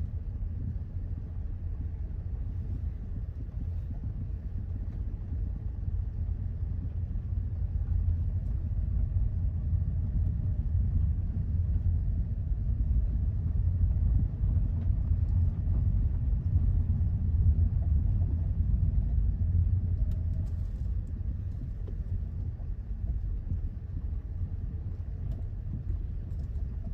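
Hyundai Elantra (CN7) driving: a steady low rumble of road and tyre noise that grows louder midway and eases off near the end.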